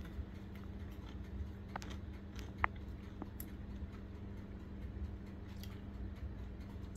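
Faint chewing of a mouthful of pizza, with a few small mouth clicks, the sharpest about two and a half seconds in, over a steady low hum.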